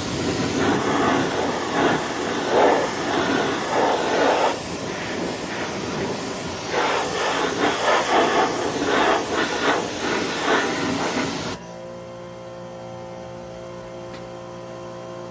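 Pressure washer jet blasting grime off an old extension ladder: a loud, hissing spray that swells and fades as the jet moves. About eleven and a half seconds in the spray cuts off suddenly, leaving a steady hum.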